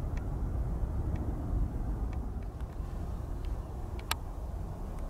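Low, steady rumble of jet airliner engines at a distance, slowly fading, with a few light clicks and one sharper click about four seconds in.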